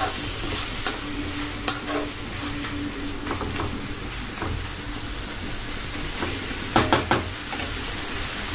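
Chopped onions and tomatoes sizzling as they fry in a pan, stirred with a steel perforated skimmer ladle that clinks and scrapes against the pan, with a few louder knocks about seven seconds in.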